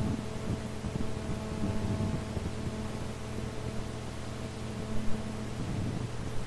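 Steady hiss and faint mains-like hum of an old recitation recording in a pause between verses, with a low rumble of background noise and one short thump about five seconds in.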